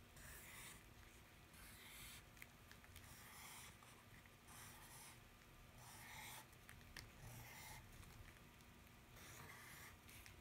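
Faint scratching of a pen on paper in a series of short strokes, about one a second, as arched outlines are drawn.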